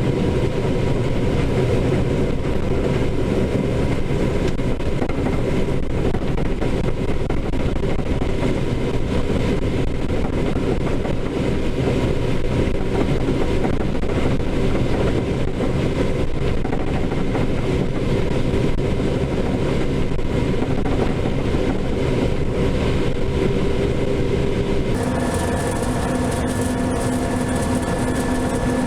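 Case IH 7130 combine running steadily while harvesting corn: a dense, even mechanical drone with a steady hum. About 25 seconds in the sound changes and new steady whining tones appear.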